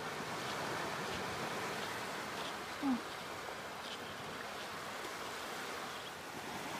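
Steady beach ambience: shallow seawater washing over sand, with wind on the microphone. One brief short sound rises about three seconds in.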